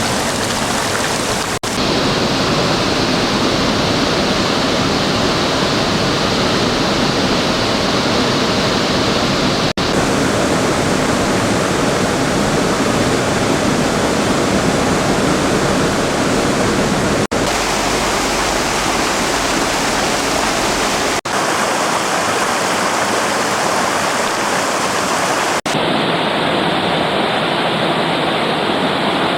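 Rushing river water: a steady, loud rush of a fast-flowing stream. It shifts abruptly in tone a few times, at cuts between clips.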